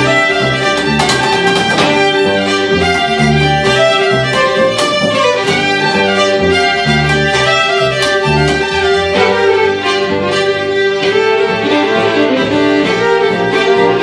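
Two fiddles playing an instrumental folk tune together over a plucked upright bass, with a steady held note sounding under the melody.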